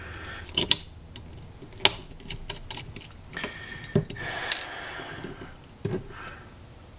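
Small screws being backed out of a replica lightsaber hilt with a screwdriver: scattered sharp clicks and ticks with short stretches of scratchy turning.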